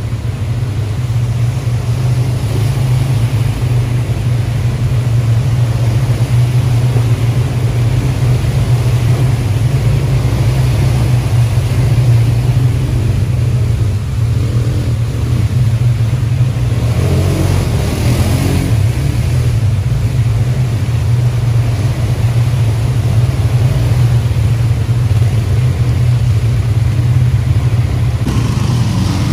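Quad ATV engine running steadily during a ride, a constant low drone.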